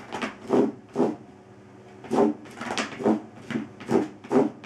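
A dog scraping its front paws across a coarse fibre doormat. It makes three quick strokes, pauses for about a second, then makes a faster run of about seven more.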